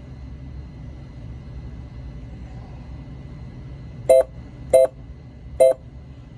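Williams WPC pinball machine sounding three short electronic beeps, about two-thirds of a second apart, as its service menu is stepped through, over a steady low hum.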